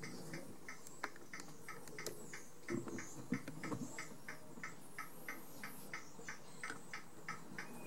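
Abarth 500 hazard warning light flasher ticking steadily, about three to four faint ticks a second, with a few soft knocks around the middle.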